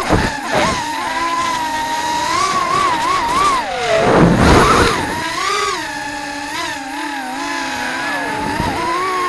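FPV racing quadcopter's brushless motors and propellers whining, the pitch rising and falling with the throttle; about four seconds in the pitch dips and the sound turns rougher for about a second.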